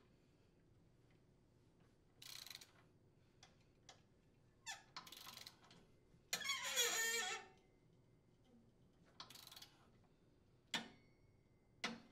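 Ratcheting torque wrench on a 9/16-inch socket tightening the impeller's center mounting bolt to 50 foot-pounds: faint scattered clicks and scrapes, with a longer ratcheting burst about six seconds in.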